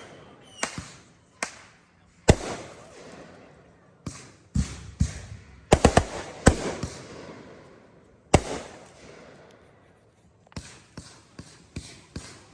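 Fireworks display of aerial shells and 500-gram cakes: a series of sharp bangs, each trailing off, the loudest about two seconds in and past eight seconds. A quicker run of smaller pops follows near the end.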